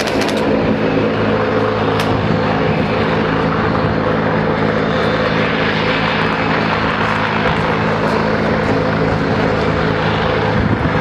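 WZ-10 attack helicopter flying, a steady, loud rotor and turbine drone, with a couple of sharp clicks in the first two seconds.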